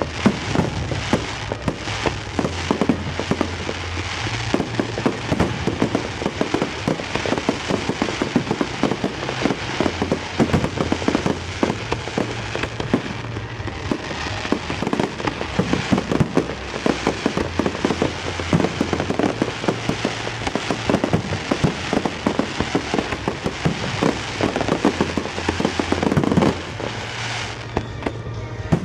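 Fireworks display: a dense, continuous barrage of shell bursts and crackles, easing off about two seconds before the end.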